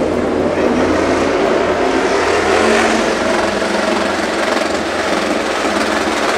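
Loud, steady drone of MotoGP race-bike engines running, with a slight rise in pitch about halfway through.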